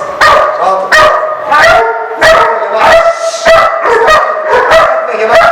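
A young puppy barking rapidly and repeatedly, about two sharp barks a second, at an agitator in protection-training.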